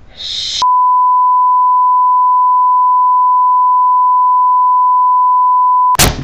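A steady pure beep tone at about 1 kHz, edited in as a censor bleep, blots out everything else for about five seconds. A brief hiss comes just before it, and a loud sharp burst comes as it cuts off.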